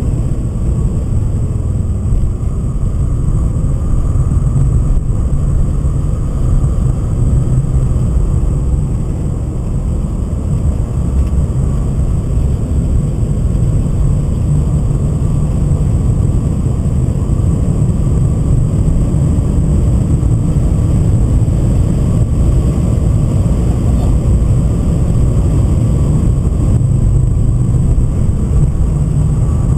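Cabin noise of a BMW 528i (E39) driven hard on a race track: its 2.8-litre M52B28 straight-six engine together with tyre and road noise, heard from inside the car as a loud, steady low noise.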